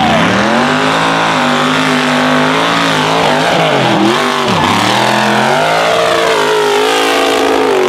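Mega truck's engine revving hard under full throttle through a mud pit. The pitch climbs, drops sharply twice about halfway through, then climbs again and holds high.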